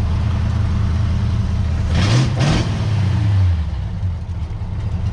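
Car engine running and road noise heard from inside the cabin while driving on a bumpy road. The engine briefly revs up and back down about two seconds in, then eases off and runs quieter near the end.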